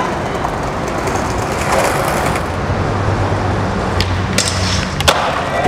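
Skateboard wheels rolling on concrete, then a sharp crack about four seconds in and a quick run of clacks, with the loudest hit about a second later as the skater takes the stair handrail and lands.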